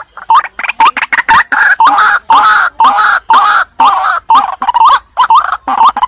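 A young white-breasted waterhen calling: a series of short rising 'kwak' notes about two a second, which swell about a second in into a louder, denser run of overlapping croaking calls and thin out again near the end.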